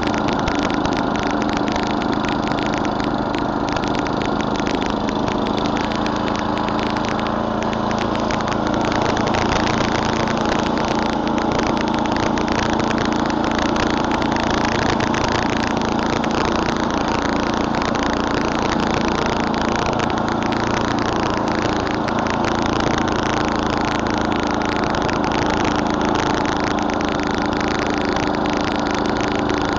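Murray Select snowblower with an 11 hp Tecumseh single-cylinder engine running steadily under load.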